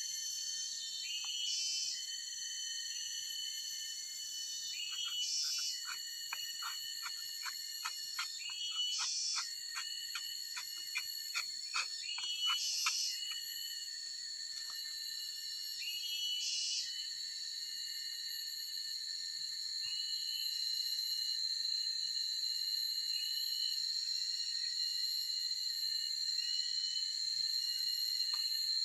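Forest ambience: a steady high-pitched insect drone, with short chirping animal calls repeated every second or two. A rapid run of sharp clicking calls, about two a second, sounds in the middle and then stops.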